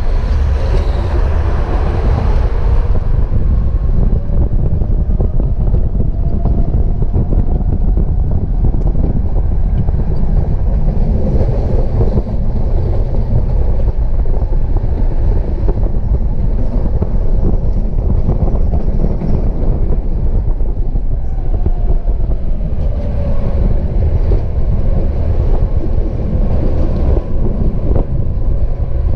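Tram heard from aboard while running: a steady low rumble of the car and its running gear. A faint whine slides in pitch at the start and again after about twenty seconds.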